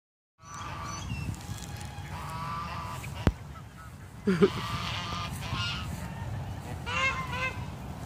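Domestic geese honking, a run of short calls from several birds, with louder honks just after four seconds and around seven seconds. A single sharp click comes a little after three seconds, over a steady low rumble.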